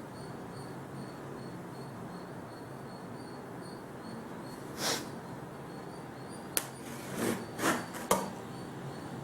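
Several short rustling bursts and a sharp click over steady background hiss, starting about halfway through. Faint, evenly pulsing high chirps sound in the first few seconds.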